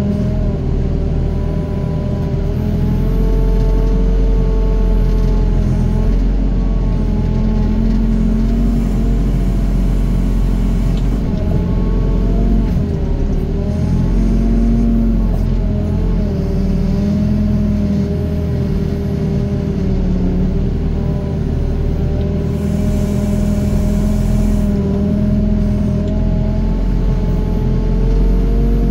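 Doosan DX55 mini excavator's diesel engine running steadily under load, its pitch rising and dipping over and over as the hydraulics work the arm and bucket.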